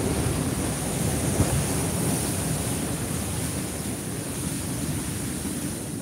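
Sea waves surging in over a rocky shoreline and boulder seawall: a steady rushing wash of surf that swells near the start and slowly eases off. One brief knock about a second and a half in.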